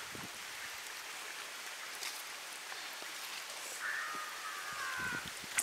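Steady outdoor hiss with a few faint soft knocks, and a call that falls in pitch for about a second and a half, beginning about four seconds in.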